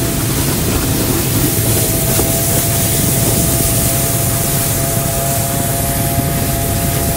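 ATV engine running at a steady speed while towing a line of sleds over snow, heard from one of the towed sleds, under a constant rush of wind and snow noise.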